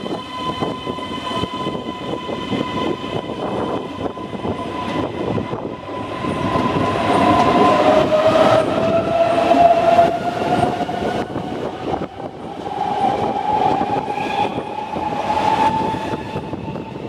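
Keisei AE-series Skyliner electric train pulling out of the station and picking up speed, its traction motor whine rising slowly in pitch over a steady rumble, with the wheels clicking over rail joints. The sound is loudest in the middle, as the train passes closest.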